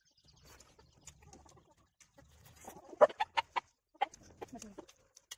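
A chicken clucking: a quick run of loud, sharp clucks about three seconds in, then a few scattered clucks.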